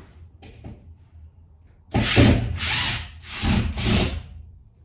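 Power drill backing a screw out of wood in four short trigger bursts, each about half a second long, starting about two seconds in.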